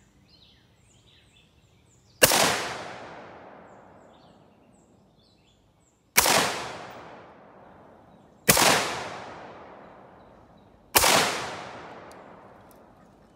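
AR-15 A2 rifle (M16A2 pattern) firing four single shots a few seconds apart, each a sharp crack followed by an echo that fades over about two seconds.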